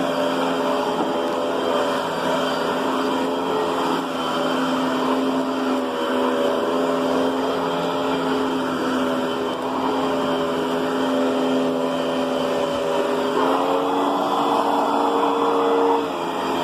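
Riccar Brilliance upright vacuum cleaner running steadily on carpet, its motor giving a steady whine. About two thirds of the way through, the pitch steps up and the sound grows louder for a couple of seconds, then drops back.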